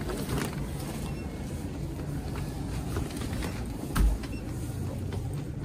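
Steady low rumble of convenience-store background noise with faint scattered clicks, and a single dull thump about four seconds in.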